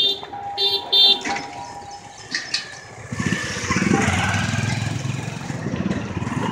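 Two short electric horn beeps in the first second. Then, from about three seconds in, a motorcycle engine running close by as it rides past.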